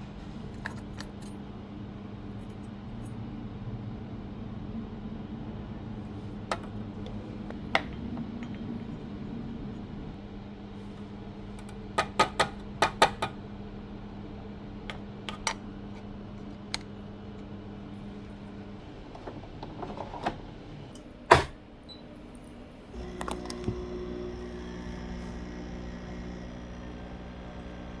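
Multifunction capsule coffee machine being prepared and started: a steady low hum, then sharp clicks and clatter of plastic and metal parts being handled, with one loud click about 21 seconds in. About two-thirds of the way through, the machine's pump starts and runs with a steady hum.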